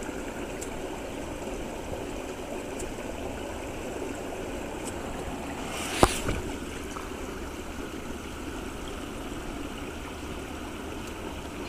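Steady outdoor hiss of moving water and air, with a single sharp pop about six seconds in: a stick firework rocket going off.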